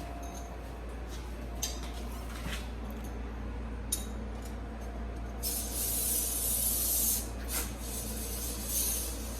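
A few light metal clicks and clinks from handling the collet chuck parts. About five and a half seconds in comes a spraying hiss lasting a little under two seconds, over a steady low shop hum.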